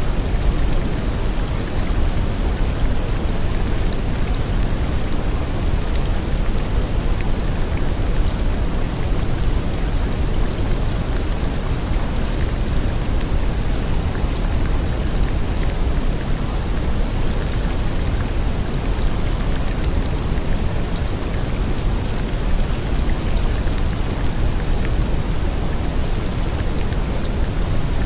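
Steady rain ambience: an even, unbroken hiss of rainfall over a heavy low rumble, the masking bed of a subliminal affirmation track.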